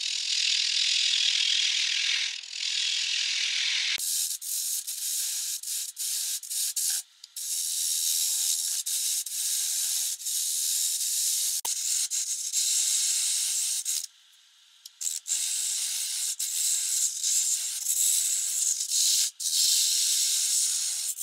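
Turning tool cutting a pale wood blank spinning on a small benchtop wood lathe: a continuous scraping hiss of the cut that breaks off briefly a few times as the tool leaves the wood.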